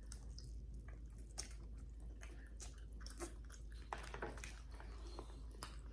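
Two people eating noodles: faint chewing and mouth sounds with a few small clicks scattered through.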